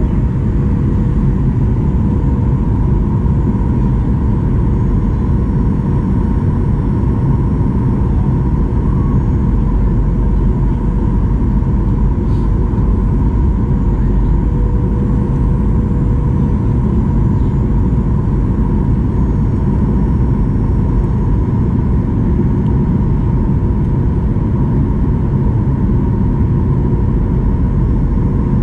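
Cabin noise of a Boeing 737-800 on approach, heard from a window seat beside the wing: a steady rush of airflow over a low rumble, with a constant whine from the CFM56-7B engines.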